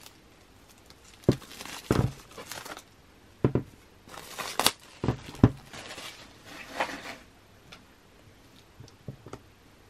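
A CD album's packaging being handled: plastic wrapping crinkling, with several sharp knocks of the case, then a few faint ticks.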